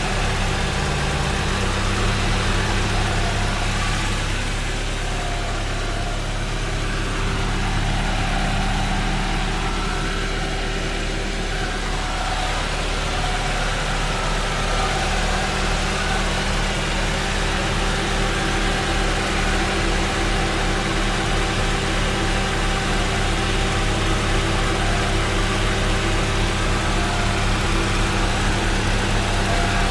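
Honda Prelude's H22A1 four-cylinder engine idling steadily.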